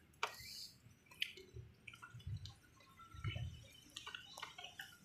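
Faint handling sounds of a rubber spark plug cap being pushed onto a motorcycle spark plug by hand: scattered small clicks, taps and soft rubbery squishes, with a few dull knocks.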